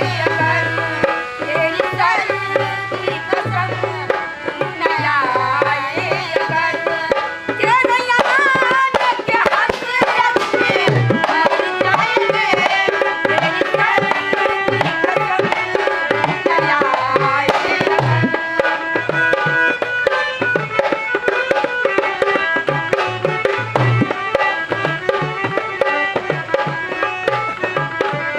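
Indian film-song music with a tabla beat under a wavering, ornamented melody line.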